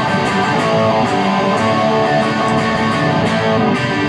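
Electric guitar strummed through a Ceriatone One perCentaur Klon-style overdrive into a Ceriatone tube amp set for crunchy high gain, playing sustained chords at a steady level. The pedal, with treble all the way down and burn all the way up, thickens the tone a little.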